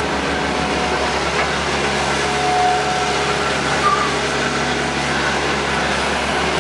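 Hitachi EX120 excavator's diesel engine running steadily under hydraulic load as the machine swings and moves its boom, with a couple of brief higher-pitched whines.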